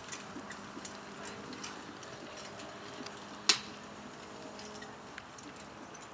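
Single horse trotting on grass while pulling a four-wheeled carriage: scattered clicks and clinks from the hooves, harness and carriage, one sharper click about three and a half seconds in, over a faint steady hum.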